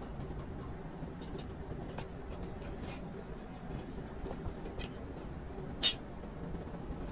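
Molten aluminium being poured from a crucible into a steel mould: faint crackling over a low steady rumble, with one sharp crack about six seconds in.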